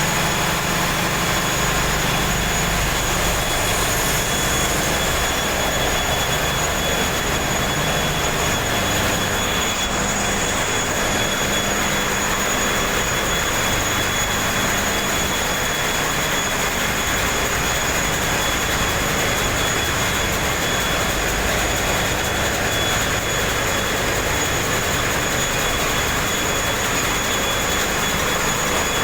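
Motor vessel's engine room machinery running: a loud, steady diesel-engine din with a low rumble underneath and a thin, steady high whine over it.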